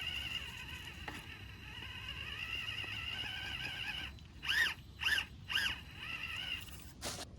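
Small electric motor and gear train of a 1/18-scale FMS FCX18 RC rock crawler whining as it crawls steadily, then three quick throttle blips whose whine rises and falls in pitch, with a short sharp noise near the end.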